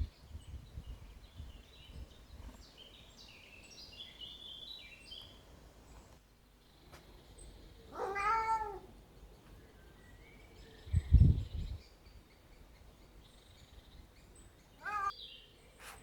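A cat meowing twice: one long, arching meow about eight seconds in and a shorter one near the end. A brief low rumble about eleven seconds in is the loudest sound.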